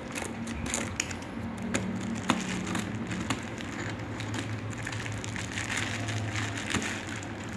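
Packaging being handled: scattered crackles and sharp clicks over a steady low hum.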